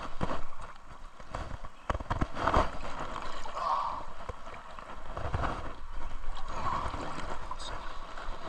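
Creek water gurgling, with several sharp knocks and thumps in the first few seconds as a hooked smallmouth bass is brought in.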